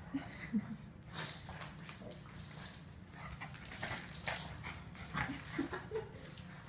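Two Boston terriers playing tug of war over a toy: a run of short, brief vocal noises and scuffling sounds from the dogs.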